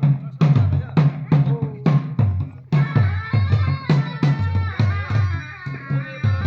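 Drum-led dance music for a folk dance: steady drum beats about two a second, joined a little under three seconds in by a sustained melody.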